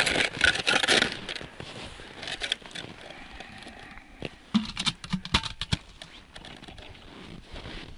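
Hands setting a plastic winter tip-up over an ice hole: a loud rustle in the first second, then scattered plastic clicks and scrapes as the reel and flag are handled, with a cluster of sharp clicks about halfway through.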